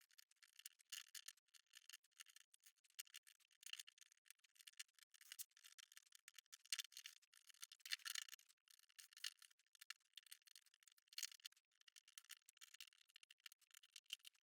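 Faint, irregular clicking and clattering of small plastic LEGO plant pieces being pulled off a build and dropped into a bin.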